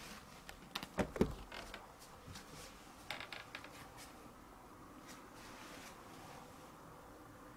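Soft thumps and knocks about a second in, then a few light clicks and taps: a Siamese cat landing on a cat tower's platform and shifting its feet.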